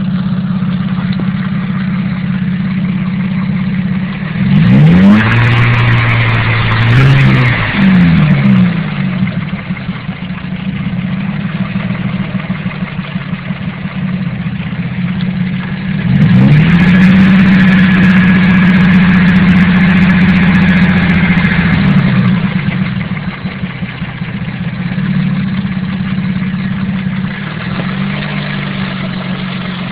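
Mazda KL-DE 2.5-litre V6 engine idling with rod knock. It is revved up twice between about five and eight seconds in, then held at higher revs for about six seconds from around sixteen seconds before dropping back to idle.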